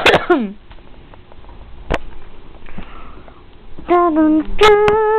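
A child's voice making play sounds: a loud breathy burst that slides down in pitch at the start, a sharp click about two seconds in, then high, held sung notes near the end.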